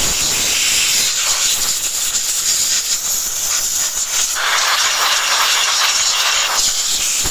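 A pressurised spray hisses steadily after starting abruptly, cleaning the gearbox bell housing during clutch release bearing service.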